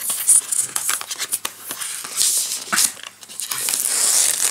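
Plastic shrink wrap crinkling and tearing as it is peeled off a cardboard paint-set box, with many quick sharp clicks and rustles.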